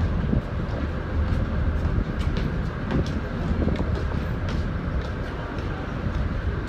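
Steady low rumble of a moving vehicle, with faint scattered clicks.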